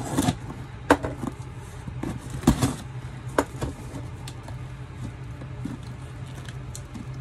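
Cardboard shipping box being pulled open along its cut packing tape: a few sharp cracks and knocks with lighter crackling of tape and cardboard, over a steady low hum.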